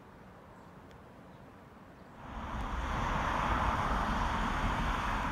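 Faint outdoor ambience, then about two seconds in a much louder steady rushing noise with a low rumble sets in and holds.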